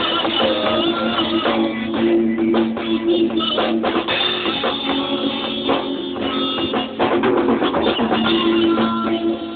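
Rock band playing an instrumental passage with no vocals: drum kit and guitar over sustained notes.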